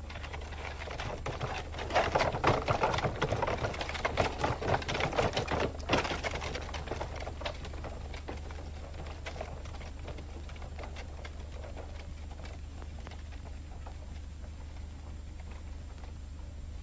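A rapid, irregular clatter of hard knocks on a hard surface. It comes up loud about two seconds in and fades away after a few seconds, over a steady low mains hum from the old film soundtrack.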